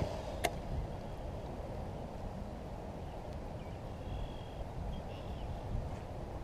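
Wind buffeting the microphone as a steady low rumble, with one sharp click about half a second in and a faint short high chirp around four seconds in.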